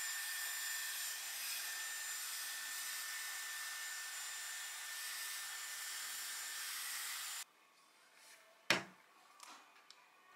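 Dyson Airwrap hair styler blowing air as it dries wet hair, a steady rush with a high whine, switching off about seven seconds in. A single sharp knock follows about a second later.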